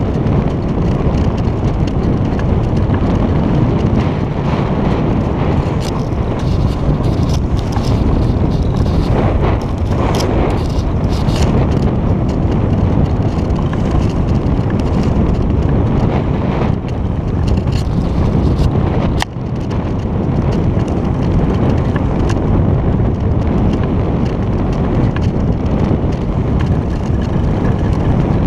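Wind buffeting a GoPro's microphone at the top of a sailboat's mast: a loud, steady, low noise, with a few faint clicks.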